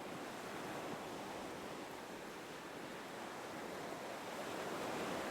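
Gentle ocean waves washing in, a soft steady rush that swells slightly near the end.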